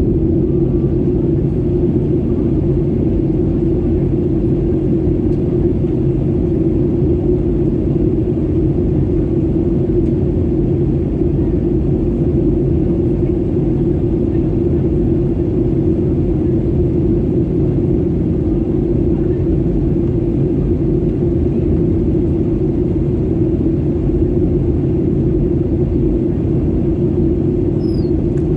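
Steady airliner cabin drone in flight: engine and airflow noise with a constant low hum, unchanging throughout.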